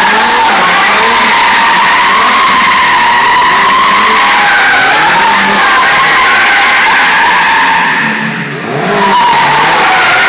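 Ferrari V8 held at high revs while the rear tyres spin and squeal continuously in a burnout doughnut, the squeal wavering in pitch. About eight seconds in the squeal and engine briefly ease off, then pick up again.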